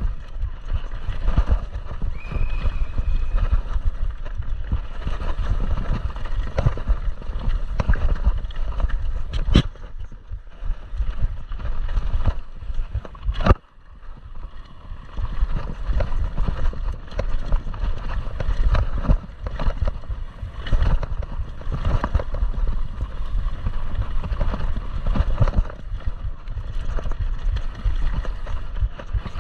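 Downhill mountain bike ridden fast over a rocky dirt trail: a constant clatter and rattle of tyres and bike over rocks and roots, with a couple of sharp knocks from hard hits, the louder one about halfway through.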